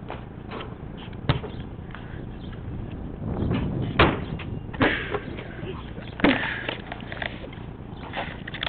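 A basketball hitting a plastic backboard and rim and bouncing on concrete: a few separate thuds spread out, the loudest about four seconds in.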